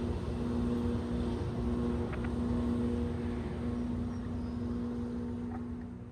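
Diesel freight locomotives running with a steady drone over a low rumble, fading out near the end.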